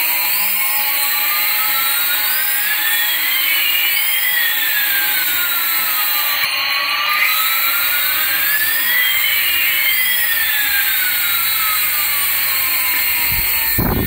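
Electronic jet-engine sound effect from a toy aeroplane: a synthetic whine whose two tones slowly glide up and down in opposite directions and cross each other, over a steady hiss.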